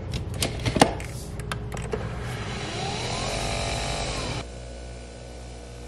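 Nespresso coffee machine starting a brew: a few clicks and knocks as a hand works the machine, then a motor whir that rises in pitch and runs steadily. About four and a half seconds in it drops suddenly to a quieter steady hum.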